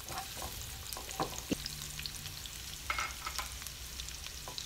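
Chopped garlic sizzling in hot oil in a nonstick wok, with a steady crackle, while a silicone spatula stirs it and strikes the pan a few times.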